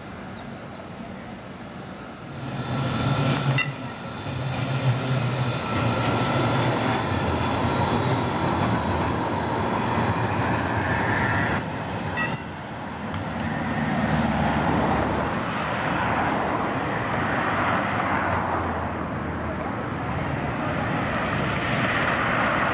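CAF Urbos 1 light-rail trams running along street tracks, their motors and wheels humming over a wash of city traffic noise. The sound grows louder about two seconds in and dips briefly around the middle.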